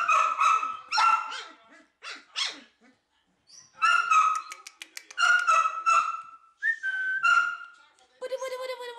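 Young puppies giving short, high-pitched yips and whines while play-fighting, a string of small calls in quick clusters with brief gaps between them.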